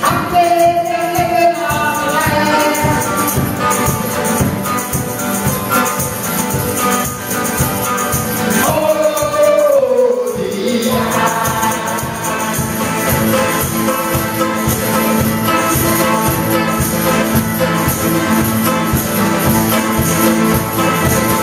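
Live acoustic folk music: mandolin and acoustic guitars strummed in a steady rhythm, with voices singing long held notes. One sung note slides down about halfway through.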